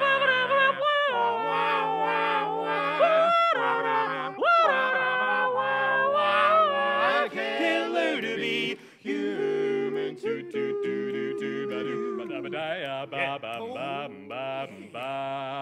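Male barbershop quartet singing wordless a cappella harmony: held chords broken by swooping vocal glides in the first half, then quicker, choppy rhythmic syllables from about halfway through.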